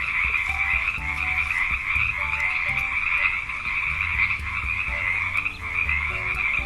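A chorus of frogs croaking, a dense, steady din with no breaks.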